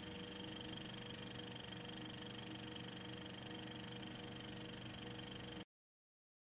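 Faint steady hiss with a few constant hum tones, like room tone or background noise, that cuts off suddenly to total silence near the end.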